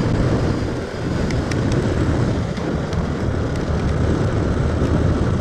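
Steady wind rush on the microphone of a moving motorcycle, with its engine running underneath. A few faint ticks stand out now and then.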